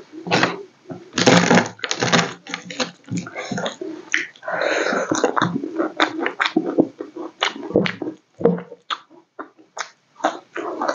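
Close-miked eating by hand: wet chewing and lip smacking with many sharp little clicks, and a longer squelchy stretch about four seconds in.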